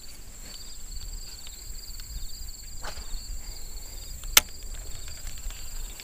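Insects chirping steadily in a rapid pulsing trill, over a low wind rumble on the microphone. A sharp click about four and a half seconds in is the loudest sound, with a softer one near three seconds.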